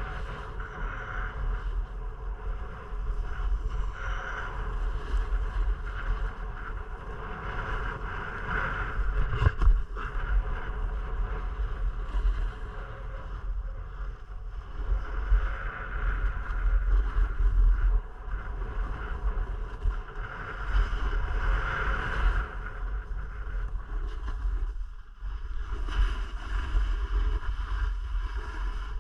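Skis hissing and scraping on snow, swelling and fading with each turn, over a low rush of wind buffeting an action camera's microphone. A single knock sounds about nine and a half seconds in.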